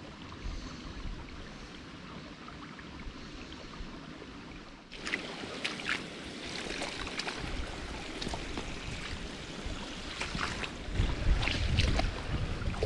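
Flowing river water, then from about five seconds in wind buffeting the microphone, with scattered clicks and rustles and a low rumble near the end.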